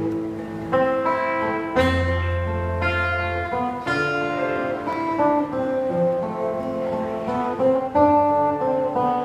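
Acoustic guitar playing a slow instrumental introduction, notes and chords ringing out with a new one about every second.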